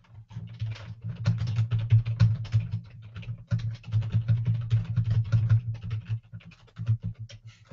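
Fast typing on a computer keyboard: a dense run of key clicks with heavy low thumps, breaking off briefly about three and a half seconds in.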